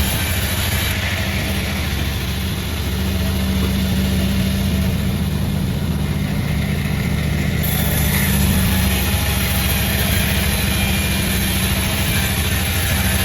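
Sawmill running steadily, with its engine's low, even hum under the noise of the saw.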